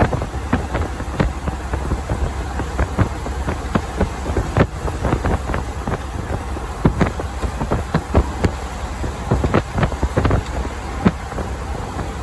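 Vehicle road noise on the highway: a steady low rumble overlaid with many irregular sharp clicks and knocks.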